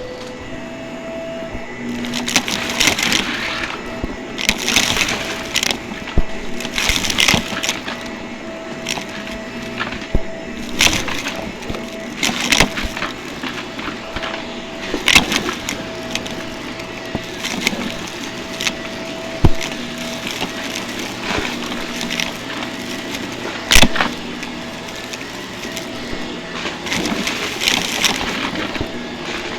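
Vacuum cleaner running with a steady motor hum, punctuated every second or two by crackling surges and a few sharp clicks.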